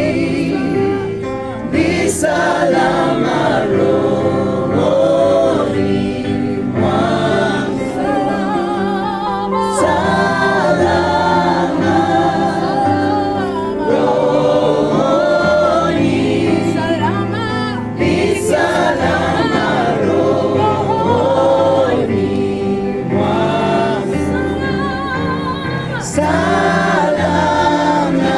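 A choir singing a gospel hymn with vibrato on the held notes, accompanied by an electronic keyboard holding steady low chords.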